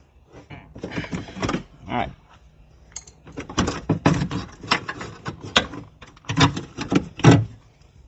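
A Dodge Charger rear door latch and its plastic bracket being pried and pulled out of the door cavity: a busy run of sharp clicks, knocks and rattles of plastic and metal, thickest in the second half.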